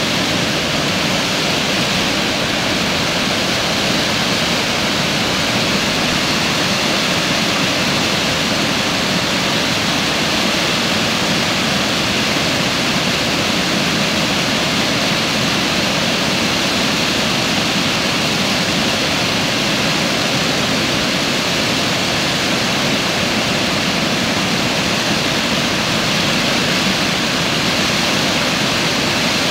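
Water pouring over a concrete dam spillway and churning into white foam below: a loud, steady rush.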